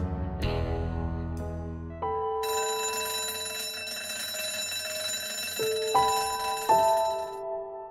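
Background music, then an electric school bell ringing continuously for about five seconds from a couple of seconds in, cutting off abruptly near the end, over a few held musical notes.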